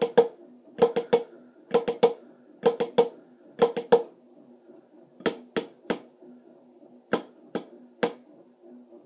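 Snare drum playing Swiss army triplets, each group a flam followed by two taps: five groups of three at about one a second, then two slower, more spread-out groups near the end. A drum ring sounds under the strokes.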